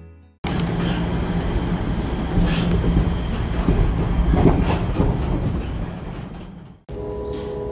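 Subway train running, heard from inside the car: a loud rumble with wheels clacking over the rails. Near the end it cuts off and a steadier hum with a held tone begins.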